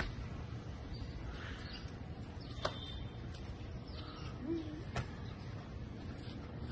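Low steady background hum with faint birds chirping, broken by three short sharp slaps about two and a half seconds apart: an American football being caught by hand.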